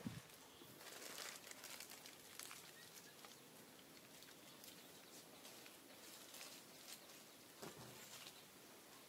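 Near silence: faint outdoor ambience with scattered soft ticks and rustles.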